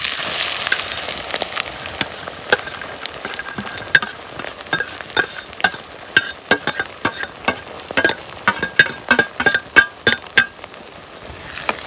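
Food sizzling in hot oil in a cooking pan, loudest in the first second. Then a utensil knocks and scrapes against the pan in quick, uneven strokes as the food is stirred, each knock with a short ring, until the strokes stop near the end.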